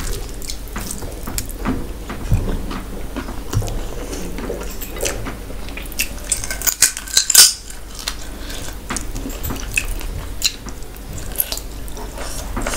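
Close-up eating sounds of a person eating rice and curry by hand: wet chewing, lip smacks and fingers squishing rice and gravy, with a run of louder smacks about seven seconds in.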